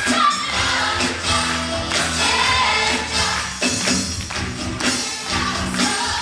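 Live stage-musical curtain-call music: the cast singing together over the pit band.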